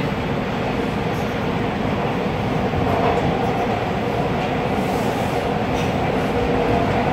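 Toronto subway train running through a tunnel, heard from inside the car: a steady, fairly loud rumble of wheels on rails, with a faint humming tone that gains a second, higher hum about halfway through.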